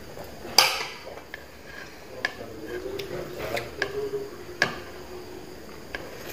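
Metal spoons clinking against bowls while eating: a string of sharp, irregular clicks, the loudest about half a second in.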